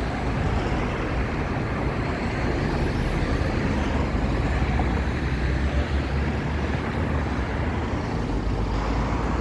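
Steady rumble of road traffic, strongest in the low end, with no single event standing out.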